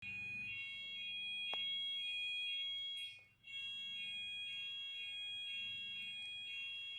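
Fire alarm sounding: a steady high-pitched tone with a pulsing warble about twice a second. It cuts out briefly a little over three seconds in.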